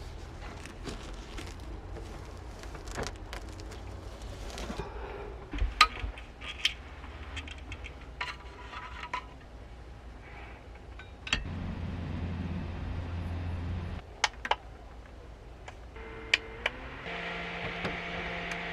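Small objects being handled: scattered clicks and light clinks like dishes, glass or keys. A steady low hum runs for a few seconds about eleven seconds in, and a steady machine tone like a small fan or motor comes on near the end.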